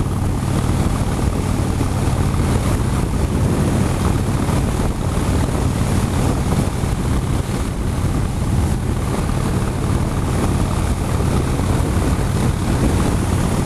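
Harley-Davidson Dyna's air-cooled V-twin engine running steadily at cruising speed, heard under heavy wind rushing over the rider's microphone.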